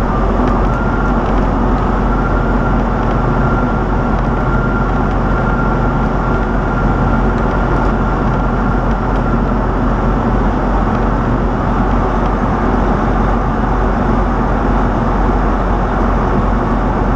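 Truck's diesel engine and road noise, a steady drone heard from inside the cab, with a thin steady whine above it. The driver has said the big turbo is gone and the engine has no boost.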